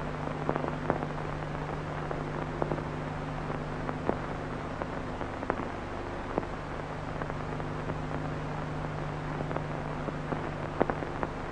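Old black-and-white film soundtrack with no dialogue: a steady hiss and low hum, broken by scattered clicks and crackles.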